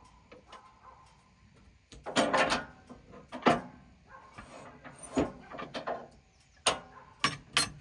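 Irregular clunks and knocks of a maple log and a steel cant hook against the steel bed and log clamps of a Wood-Mizer LT band sawmill as the log is turned and set for the next cut. A short scraping cluster about two seconds in and a sharp knock at about three and a half seconds are the loudest, and several lighter knocks follow near the end.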